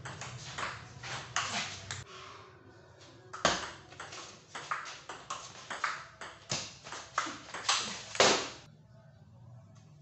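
Table tennis rally: the ball clicking off paddles and the table top in quick, irregular strikes, with short pauses between points. The loudest knocks come about three and a half and eight seconds in.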